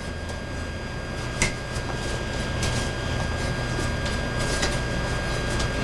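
Steady low hum with a few faint, short clicks scattered through it, from a pair of butterfly swords being turned over at the wrists.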